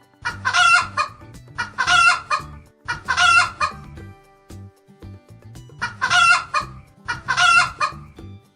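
A domestic chicken calling five times in short, loud bursts, spaced a second or more apart, with a longer gap in the middle.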